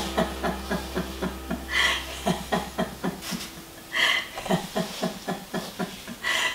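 Laughter-yoga free laughter: continuous rhythmic "ha-ha-ha" laughing, about five pulses a second, with a sharper, higher burst every couple of seconds.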